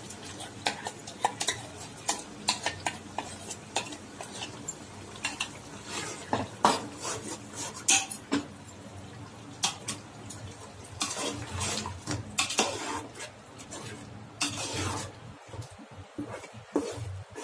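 Metal slotted spoon stirring yogurt and coconut masala into mutton in a metal pot, clinking and scraping against the pot at irregular intervals.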